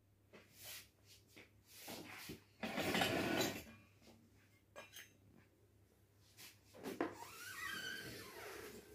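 Metal spoon scraping and knocking against a steel strainer while pressing freshly churned butter through its mesh: a run of short scrapes, the loudest and longest about three seconds in, and a squeakier scrape near the end.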